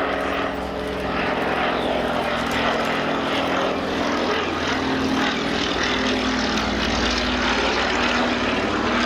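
Fairey Swordfish biplane's Bristol Pegasus radial piston engine and propeller droning steadily in flight, the pitch shifting slightly as it flies past.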